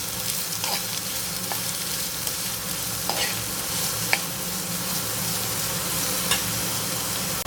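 Chopped onions and green chillies sizzling steadily in hot oil in a pan as they saute, with a few light clicks of stirring against the pan.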